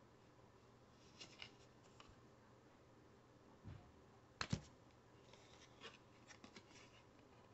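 Faint clicks and light slaps of cardboard basketball trading cards being handled and moved off a stack one at a time, with a dull knock just before the loudest sound, a sharp double click about halfway through, and a run of small ticks after it.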